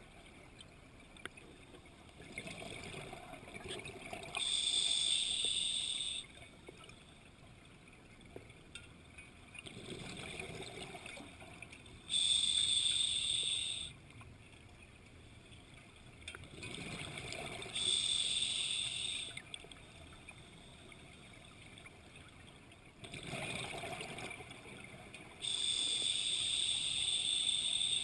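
A scuba diver breathing underwater through a regulator: four slow breaths several seconds apart, each a rush of air and bubbles followed by a louder hiss.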